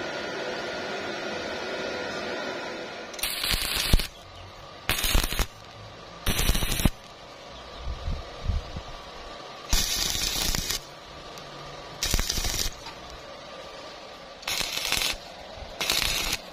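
Stick-welding arc from an E6013 electrode on thin pipe, struck and broken seven times in short crackling, hissing bursts of about half a second to a second each, with pauses between: an intermittent, stop-start arc. A steady hum runs before the first strike.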